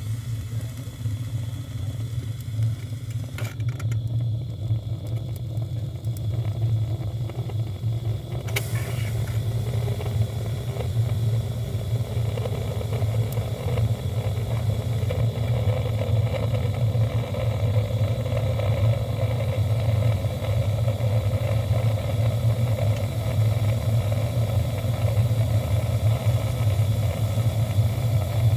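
A steady, loud, low mechanical hum, with a higher midrange tone building up after about ten seconds.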